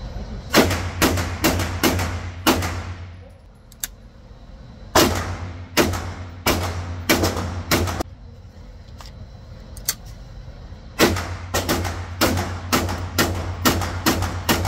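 Pistol in a Flux Raider 365 brace chassis fired in rapid strings at an indoor range: three quick volleys of several shots each, about two seconds apart, each string trailing off in room echo.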